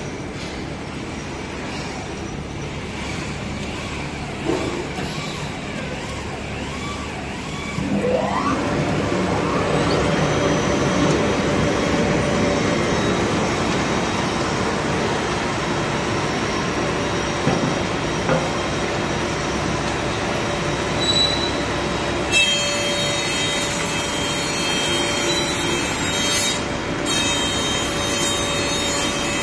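Double-sided planer thicknesser running with a steady mechanical hum. About eight seconds in, a motor spins up with a rising whine and the machine runs louder and steadily from then on.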